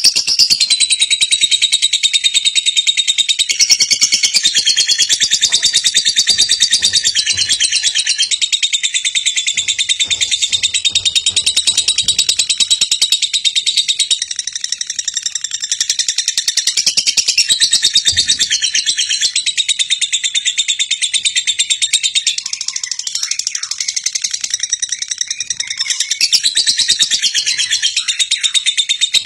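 Dense chorus of birds chirping and calling without a break, high-pitched and busy, with a wavering whistled note running through it.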